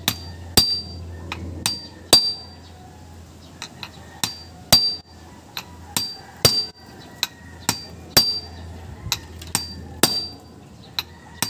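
Hammer blows on the end of a Nissan Sentra's CV axle shaft, knocking it back into its CV joint during reassembly: about twenty sharp metallic strikes at an uneven pace of one or two a second, the stronger ones ringing briefly.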